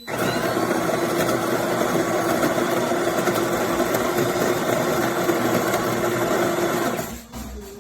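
De'Longhi Magnifica Start espresso machine running a motor with a steady hum and hiss, starting abruptly and cutting off about seven seconds in.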